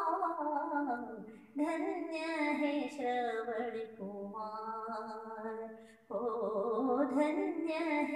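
A woman singing a devotional song, sung in long, wavering phrases with brief breaks about a second and a half and about six seconds in.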